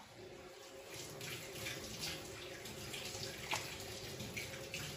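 Soft, wet tearing and squelching of cooked eggplant being pulled apart by hand into strips: a string of small irregular sounds over a steady low hum.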